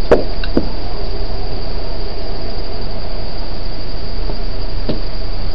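Steady chorus of night insects, crickets trilling in a constant high band over a low rumble. A few light knocks, once at the start, again about half a second in and once near the end, as a plastic collapsible basin is handled against its drawer frame.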